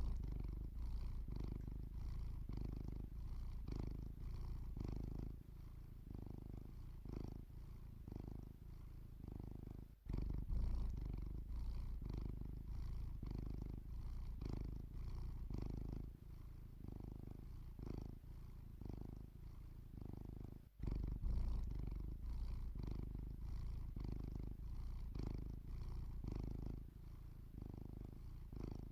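Domestic cat purring in its sleep: a low, steady purr that swells and fades in an even rhythm about once a second, briefly breaking off twice.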